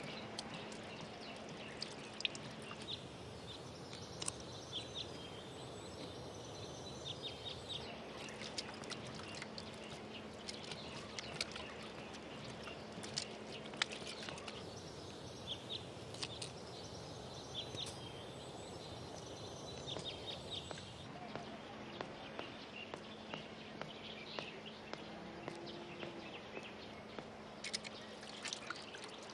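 Water trickling and splashing from hanging push-valve washbasins as hands and faces are washed, with scattered small drips and taps.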